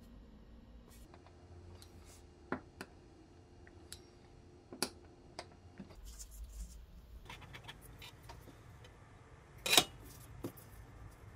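Metal bench scraper pressed down through croissant dough onto a wooden cutting board, giving a few sharp knocks. After that come the soft rustling sounds of gloved hands handling dough, and a louder single knock near the end.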